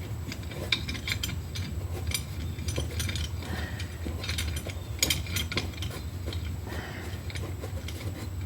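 Irregular metallic clicks and clinks of a C-clamp being worked on a brake caliper, pressing the caliper piston back into its bore, over a steady low hum.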